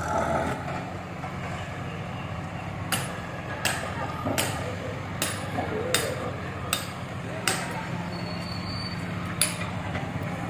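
A series of sharp hammer blows, about one every three-quarters of a second, over a steady low engine drone.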